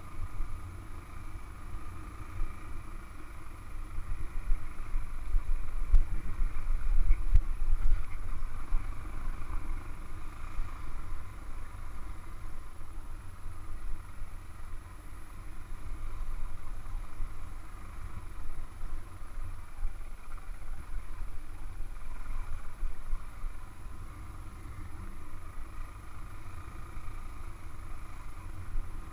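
Motorcycle being ridden over a rough dirt track: the engine runs steadily under a heavy low rumble that swells louder about a quarter of the way in. A couple of brief knocks come from bumps in the track.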